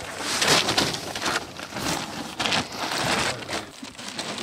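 Irregular crunching and scraping on gravelly dirt as a person moves about under or beside the Jeep to reach its front differential.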